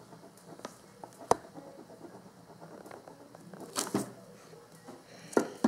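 Pen drawing on paper on a plastic drawing board: faint scratching strokes, a sharp click about a second in, and brief rustles of a hand on the paper around four seconds and near the end.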